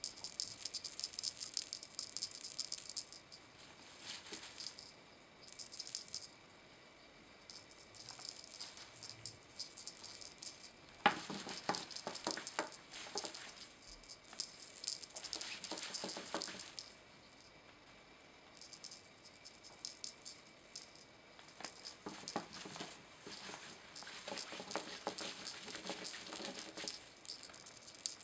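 Cat wand toy with shiny tinsel streamers being shaken, giving a crinkly, jingly rattle in stop-start bursts of a second to several seconds.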